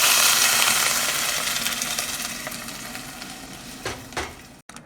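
Pasta sauce hitting a hot pan of onions fried in butter, sizzling loudly at first and dying down over a few seconds as the pan cools, with a couple of knocks near the end.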